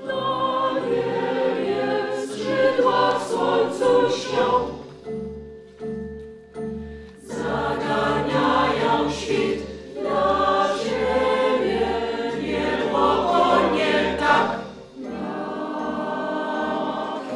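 Mixed choir singing a piece that imitates the calls of the white-tailed eagle, many voices in shifting, layered chords. About five seconds in it thins to a few held notes, and the full choir returns about two seconds later.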